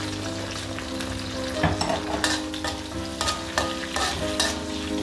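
Dried red chillies frying in shallow oil in a wok, sizzling steadily. From a little over a second and a half in, a spatula stirs them, scraping and knocking against the wok several times.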